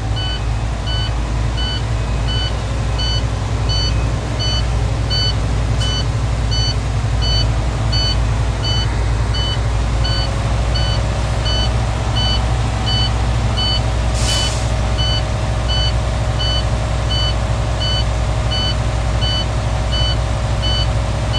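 Heavy truck diesel engine held at raised revs to pump up the air brake system, with the low-air-pressure warning beeping steadily about twice a second: the air tanks are still below the warning pressure, building from about 30 PSI. A short hiss about two-thirds of the way through.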